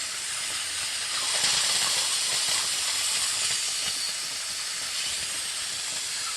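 Steady hiss of compressed air being fed into a gallon jug of vinegar, pressurising it to force the vinegar through a hose into a water heater's drain valve. It grows a little louder about a second in.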